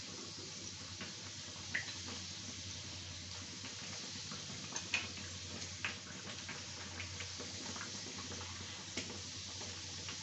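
Sattu-stuffed litti deep-frying in hot oil in a kadhai: a steady sizzle, with several sharp clicks of a steel slotted skimmer tapping the pan as the pieces are pushed and turned.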